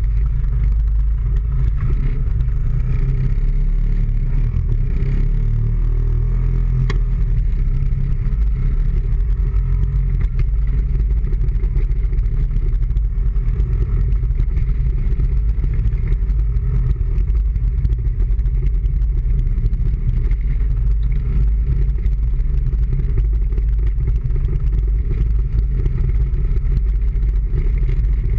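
A motorbike's engine running steadily while riding slowly in traffic, under heavy wind rumble on the microphone.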